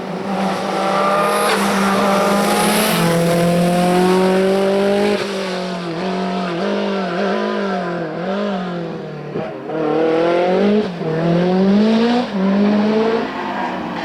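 Hillclimb race car engine under hard load, its pitch holding high then dropping at a gear change about three seconds in; from the middle on the revs rise and fall again and again as the car lifts off and accelerates through the bends, climbing once more near the end.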